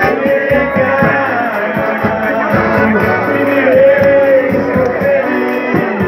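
Live serenade song: a voice singing a melody with plucked-string accompaniment and a steady beat.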